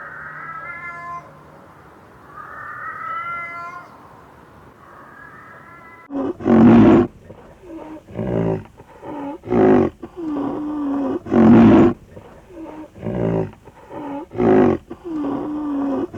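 An animal calling: a few thin rising calls, then from about six seconds in a loud series of harsh, rhythmic calls, roughly one a second, each followed by a lower drawn-out tone.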